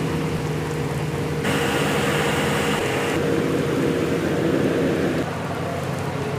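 Aquarium water noise: a steady rush of moving water with a constant low hum from the tank's filter or air pump.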